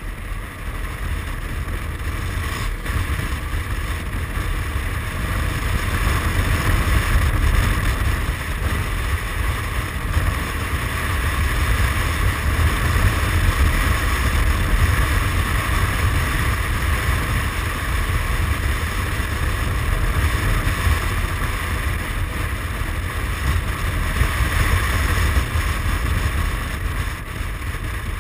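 Wind buffeting the microphone over the running engine and tyre noise of a Suzuki Burgman 400 scooter riding at a steady speed. The noise swells a little a few seconds in and stays fairly even after that.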